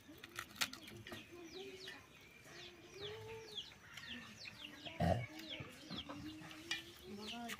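Chickens clucking, with many quick, high, falling chirps throughout and one dull thump about five seconds in.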